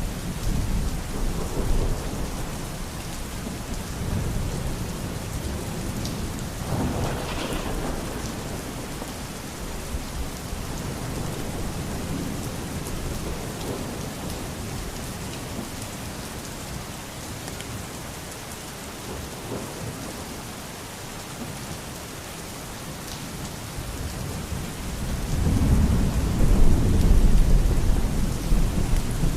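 Steady rain falling, with low rolling thunder underneath that swells loudest for a few seconds near the end.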